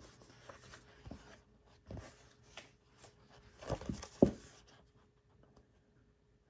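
Pages of a paperback book being leafed through and handled: soft paper rustles and light taps, with two sharper knocks about four seconds in.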